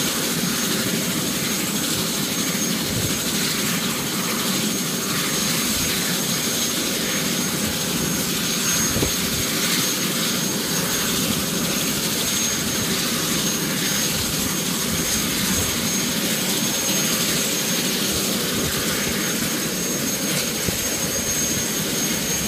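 Helicopter turboshaft engine running on the ground: a steady rushing noise with a constant high-pitched turbine whine.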